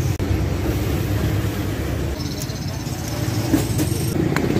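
Motorcycle engine running with a steady low rumble, broken briefly just after the start, with a couple of light metallic clicks near the end.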